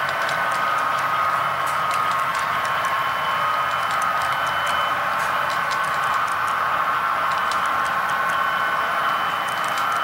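HO-scale model coal train's hopper cars rolling along the layout track: a steady rolling hum with many small irregular clicks as the wheels pass over the rail joints.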